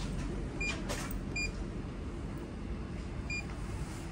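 Three short electronic beeps, the first two about half a second apart and the third about two seconds later, over a steady low rumble.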